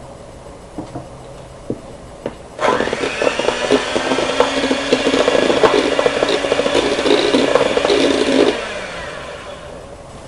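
Electric hand mixer switched on about two and a half seconds in, its motor whining up to speed with the beaters clattering in the bowl as they beat an egg yolk into stiffly whipped egg whites. It runs for about six seconds, then cuts off and winds down.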